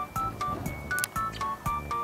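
Background music with a steady, bouncy beat and short, plucky keyboard notes repeating about four times a second.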